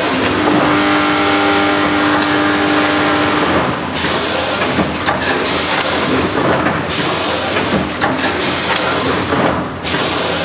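Back-sealing bag packing machine running: steady mechanical noise from the film-pulling belts and sealing jaws, with a motor whine for about three seconds near the start and scattered clicks and knocks.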